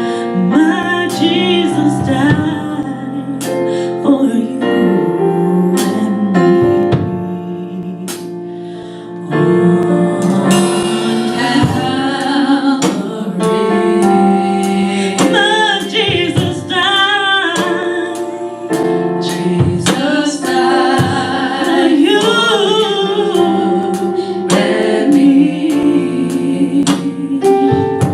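Gospel vocal group singing with instrumental accompaniment.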